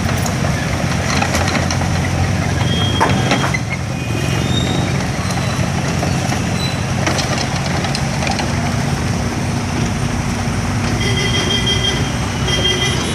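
Heavy diesel machinery, such as JCB excavators at demolition work, running steadily with a low drone, broken by occasional knocks and clanks. A few short high-pitched beeps sound near the end.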